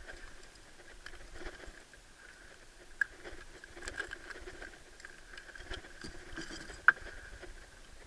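Light rustling and knocking of gear and the catch being handled in the bottom of a small open boat, with two sharp clicks, one about three seconds in and one near seven seconds.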